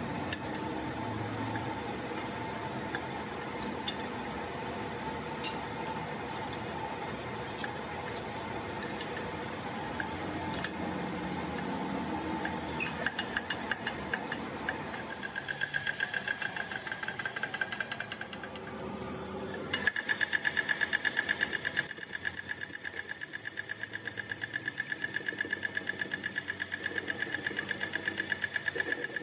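Metal lathe running with a truck driveshaft part spinning in its four-jaw chuck. About halfway through, a high steady whine sets in, pulsing a few times a second, as the cutting tool turns the end of the steel part. The whine grows louder about two-thirds in.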